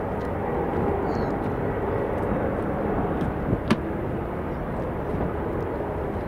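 Airbus A330-300 airliner's jet engines running at low taxi thrust as it rolls slowly on the ground: a steady rumble with a faint hum. A single sharp click comes about three and a half seconds in.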